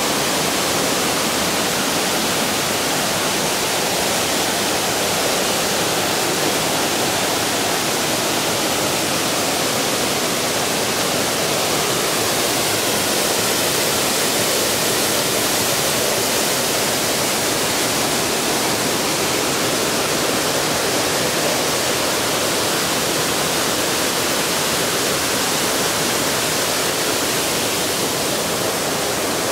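Mountain stream water rushing over rocks and falls, a loud, steady, unbroken rush.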